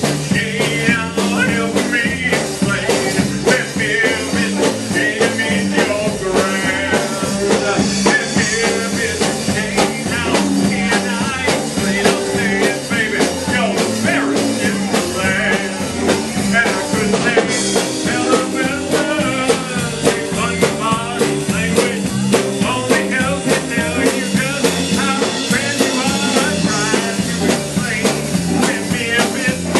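Rock-and-roll music with singing over a steady drum beat, playing throughout.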